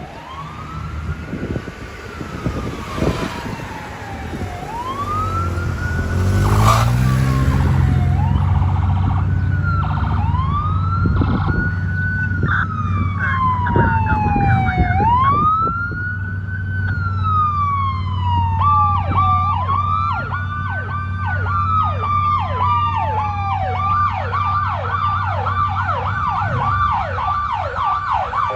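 Emergency vehicle's electronic siren sounding the Powercall tone: repeated quick rises to a high peak, each followed by a slower falling glide, switching to a rapid yelp about four-fifths of the way in. A low engine drone runs underneath, and the whole sound grows louder over the first several seconds.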